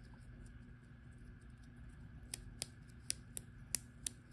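Faint, sharp little clicks, about six in the second half, as fingers work a small rubber tire onto a Mini-Z wheel rim. A low, steady hum sits underneath.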